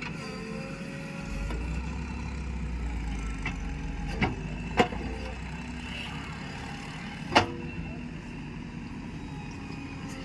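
Heavy vehicle engine running steadily, with a deeper rumble from about a second in until about six seconds. Three sharp knocks land about four, five and seven seconds in; the last is the loudest.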